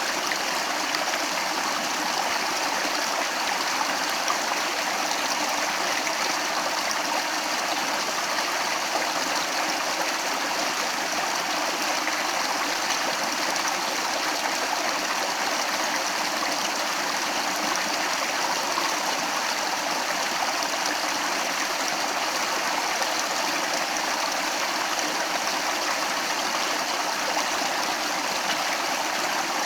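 Stream water running steadily over rocks, a continuous even rush with light gurgling.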